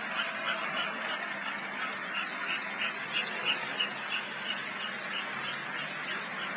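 American Flyer S-gauge Hudson steam locomotive and its freight cars running past on the track: a steady squealing running noise, with high-pitched pulses about three a second in the middle.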